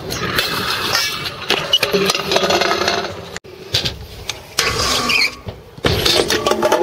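Stunt scooter wheels rolling and scraping on concrete and a metal rail, with sharp knocks of the deck and bars hitting the ground. The sound breaks off abruptly about three and a half seconds in.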